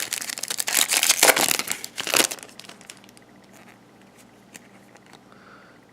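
Crinkling and tearing of a baseball card pack's wrapper, loud for about two seconds, then a few faint clicks as the cards are handled.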